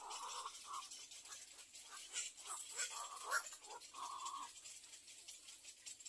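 Little egret chicks crying with hunger: a string of short, repeated calls in the nest, busiest in the first four and a half seconds and then dying down.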